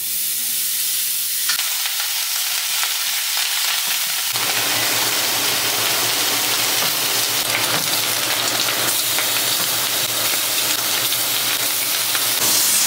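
Slices of meat frying in a steaming pan, a steady sizzle that becomes fuller about four seconds in.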